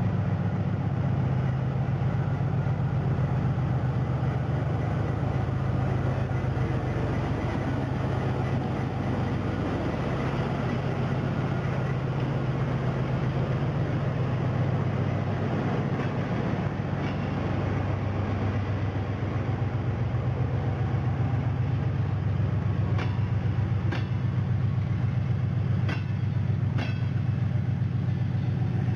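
2TE10U diesel locomotive's engines running with a deep, steady drone as the train pulls out, with a few sharp clicks of wheels over rail joints in the last part.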